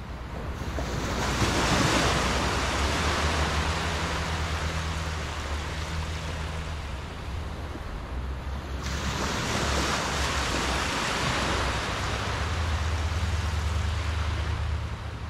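Small ocean waves breaking and washing up a sandy beach. The surf swells twice, once about a second in and again a little past the middle, each time rushing in and slowly fading.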